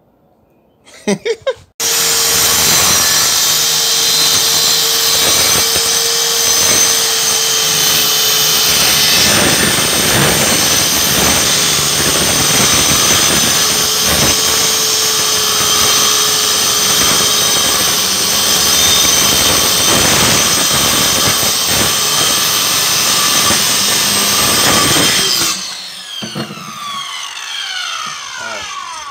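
SKIL corded circular saw cutting through a sheet of plywood, the motor running with a steady whine for about 23 seconds. Near the end the trigger is released and the blade spins down, its whine falling away.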